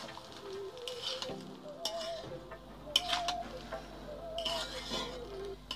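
Metal spatula stirring and scraping fried rice around a metal kadai, with a light sizzle and two sharper clinks of the spatula against the pan about a second apart near the middle.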